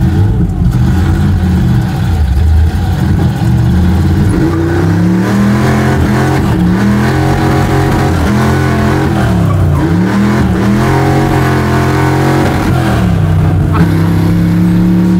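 Chevy C10 drift truck's small-block V8 running hard, its revs swinging up and down several times in the middle, then holding steady near the end.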